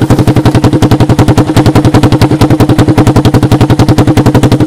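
Honda TRX200SX ATV single-cylinder four-stroke engine with a makeshift muffler, running at a steady idle: a loud, even exhaust popping about ten times a second.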